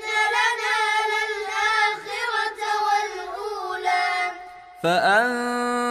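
A child's high voice chanting a Quran verse in a melodic recitation; just before the end it stops briefly and a lower adult voice begins reciting.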